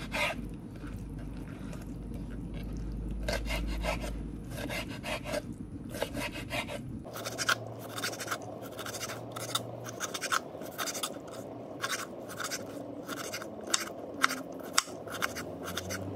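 A kitchen knife chopping soft salted pickled greens on a wooden cutting board: a run of irregular taps of the blade on the board. The strokes are sparser at first and turn into quicker chopping from about seven seconds in.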